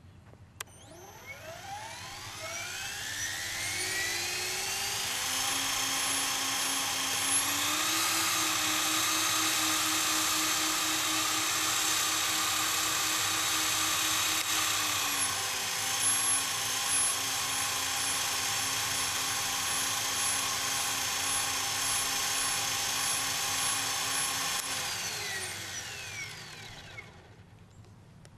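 Electric motor and drivetrain of an Align T-REX 700E DFC RC helicopter spinning up with no blades fitted: a whine that rises in pitch, holds steady, steps up in pitch about a third of the way in and back down about halfway, then winds down near the end.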